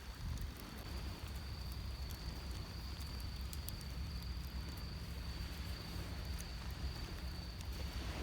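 Campfire crackling with scattered faint ticks, over a steady high insect trill and a low continuous rumble of surf.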